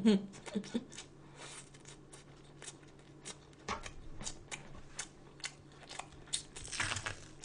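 Close-up eating of crunchy food: irregular sharp crunches and clicks of chewing, with a short louder rustling noise near the end.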